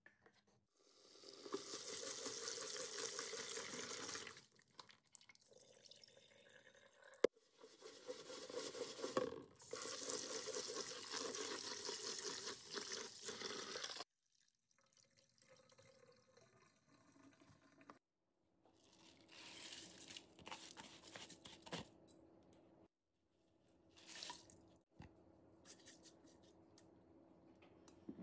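Water running and splashing over rice as it is rinsed and then poured into a rice cooker's inner pot to cover it, in two long spells of a few seconds each that stop abruptly. Softer, scattered handling noises follow.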